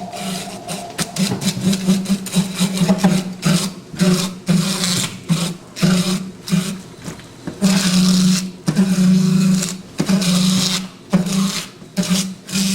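Fish skinning machine running, with a motor hum and rasping from the skinning roller that come and go in irregular bursts about once a second as fish are fed through.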